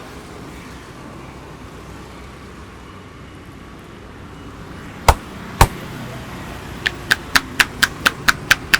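A barber's hands striking a head during a massage: two sharp, loud slaps half a second apart, then a fast, even run of lighter strikes at about four a second, over a steady traffic hum.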